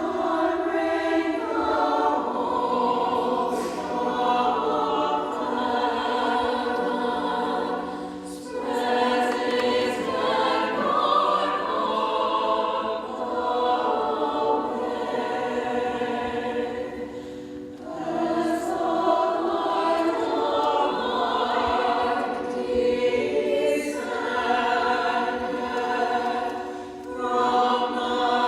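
Choir singing in long sustained phrases, with brief breaks between phrases about every nine seconds.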